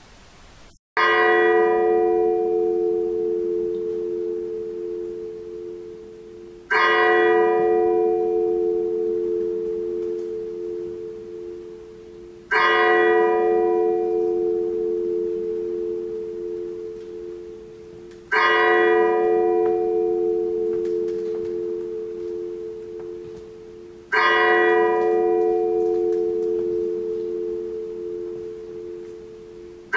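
A large bell tolling slowly, one strike about every six seconds, each stroke ringing on and fading before the next. The first strike comes about a second in, out of silence.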